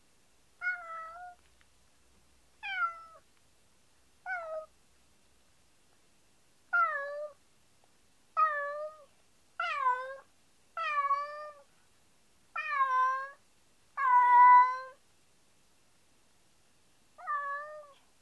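A house cat meowing about ten times, each call sliding down in pitch, the calls growing longer and louder, with the loudest and longest about three quarters of the way through and one last meow near the end. It is the lonely crying that the owners suspect is the cat's distress at being left alone.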